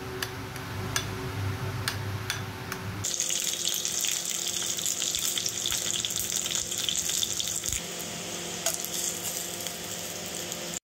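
A metal spoon clinks a few times against a ceramic bowl while stirring a sauce. About three seconds in it gives way to chicken pieces sizzling steadily as they fry in oil in a pan, with an occasional tap from metal tongs.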